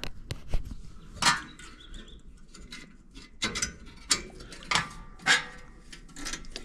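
A string of short metallic clanks and knocks, about eight spread over several seconds, from metal dryer parts being handled during the heating element swap.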